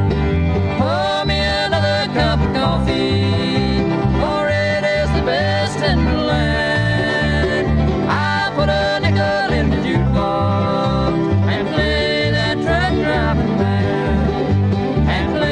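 Bluegrass band playing an up-tempo country song: mandolin, acoustic guitar, banjo and fiddle over a steady bass line.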